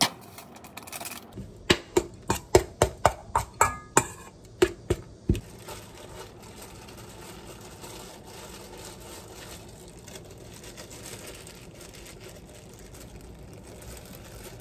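About eleven sharp knocks in quick succession, roughly three a second, starting near two seconds in and stopping about five seconds in, followed by a steady faint background noise.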